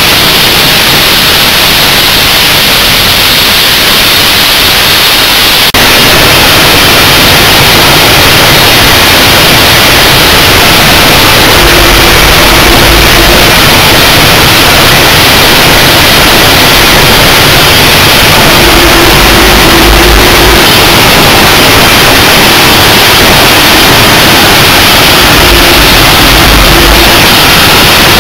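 Mount Washington Cog Railway coal-fired steam locomotive heard from inside its cab while it works, a loud, steady hiss of steam and running gear. A deeper rumble swells three times for a second or so.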